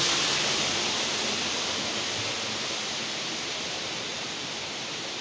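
Indoor waterfall: falling water splashing in a steady rush that slowly grows fainter.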